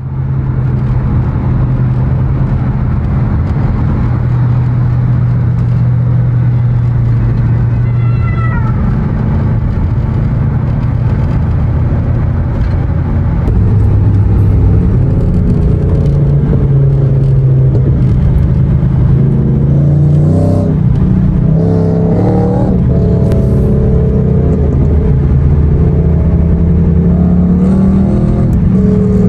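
Mercedes-Benz W124 E500's swapped-in M113 V8 running, its exhaust note steady at first, then louder and higher about halfway through, with a few quick revs rising and falling near the end.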